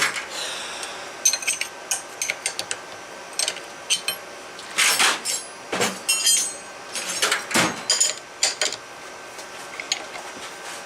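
Steel hand tools and a gear puller clinking, knocking and scraping against metal, in irregular sharp strikes, some with a short metallic ring, as the puller is worked to free a steering-box pitman arm that will not come loose easily.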